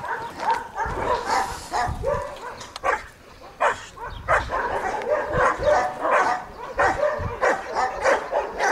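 Bouvier des Flandres barking over and over in quick succession, several barks a second, with a short lull about three seconds in.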